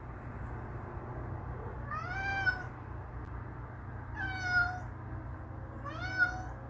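Domestic cat meowing three times, about two seconds apart, each call rising then falling in pitch: demanding meows from a cat that wants to be let outside.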